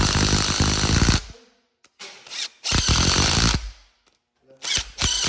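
A handheld power drill or driver spinning in three bursts, running head bolts down. The first burst cuts off about a second in, the second runs for nearly two seconds in the middle, and the third starts near the end, each one preceded by a brief trigger blip.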